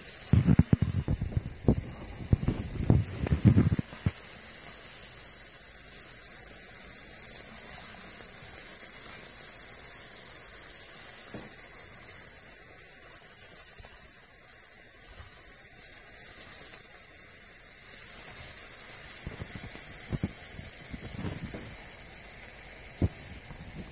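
Red-hot metal ball sizzling steadily as it burns into a block of mozzarella cheese and sends up thick smoke. A run of loud low pops and thumps comes in the first few seconds, and a few more near the end.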